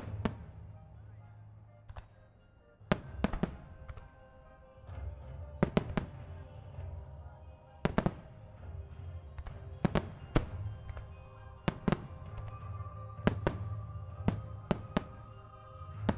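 Nomura Hanabi Kogyo starmine: aerial firework shells bursting in quick, irregular succession, a dozen or more sharp bangs, some in close pairs and clusters. Music plays with the display throughout.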